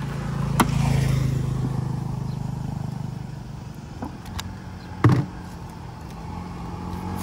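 A motor vehicle engine running with a steady low hum, louder over the first couple of seconds and then easing off. A few sharp clinks come about half a second in and again around four and five seconds in, as a metal can and bottles are handled.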